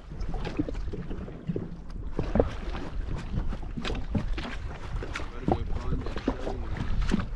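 Small waves slapping and lapping irregularly against the hull of a drifting jet ski, over a steady low wind rumble on the microphone.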